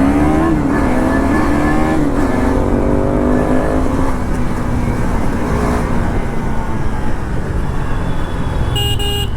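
Motorcycle engine accelerating hard, its pitch climbing through the gears with shifts about two and four seconds in, then steady wind and road rush at speed. A brief horn beep near the end.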